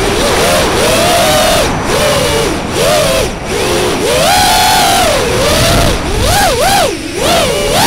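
FPV racing quadcopter's brushless motors and propellers whining, the pitch swooping up and down many times as the throttle is worked, over a loud rush of propeller wash and wind, heard from the drone's own onboard camera.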